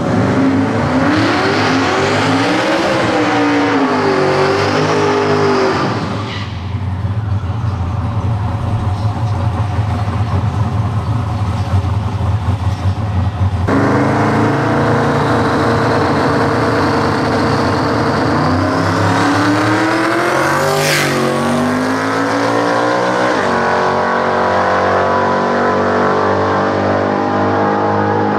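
Ford Cortina drag car's engine revving up and down with a light tyre squeal in a burnout, then running steadily at the start line. About two-thirds of the way through it launches at full throttle, revs climbing through the gears as the car pulls away down the drag strip.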